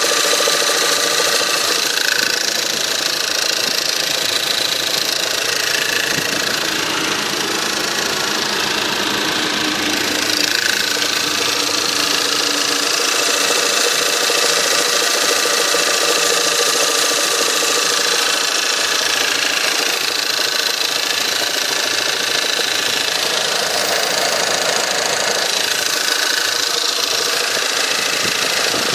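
1.8 TSI turbocharged four-cylinder petrol engine running steadily on a cold start, with a knocking rattle that is heard only while the engine is cold.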